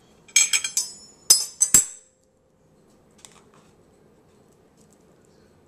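Metal cutlery, a fork and a knife, clinking against each other and a ceramic plate as it is picked up and set down: a quick run of sharp clinks with a brief metallic ring in the first two seconds, followed by faint handling sounds.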